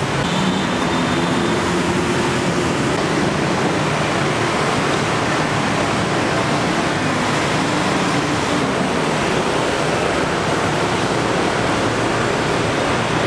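Steady road traffic noise: an even hiss with no distinct events.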